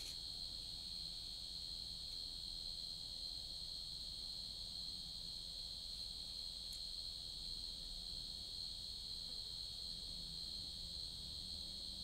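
Steady, high-pitched insect chorus, unbroken and even.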